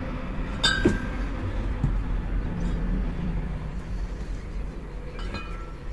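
650 ml Tuborg Strong glass beer bottles clinking as they are taken out of a cardboard case and stood on a table: a sharp ringing clink about a second in and another near the end. A steady low rumble runs underneath.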